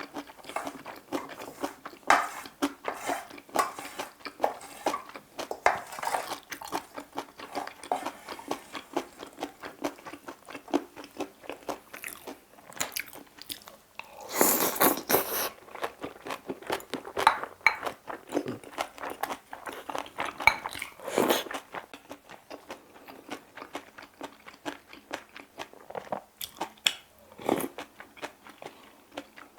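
Close-miked eating: a person chewing and crunching bibimbap, with many small wet clicks and a louder burst of crunching about halfway through.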